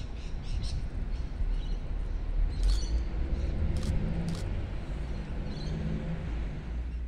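Short bird chirps scattered over a steady low outdoor rumble, with a faint hum in the middle.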